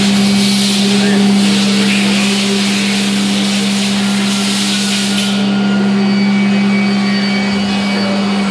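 Spindle of a Mazak Nexus 510C vertical machining center running unloaded at 12,000 rpm: a steady tone with a high hiss over it, the hiss cutting off suddenly about five seconds in.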